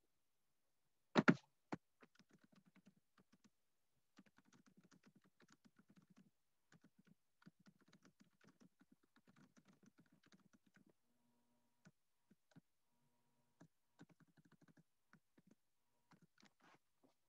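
Faint typing on a computer keyboard, in runs of quick keystrokes, after a single louder knock about a second in.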